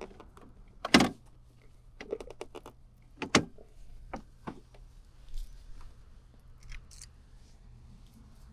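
A series of sharp knocks and clicks, the loudest about a second in and again at about three and a half seconds, over a faint steady low hum.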